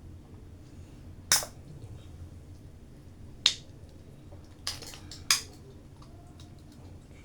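Four short sharp clicks from handling an energy drink can, spread over several seconds, with the last two close together.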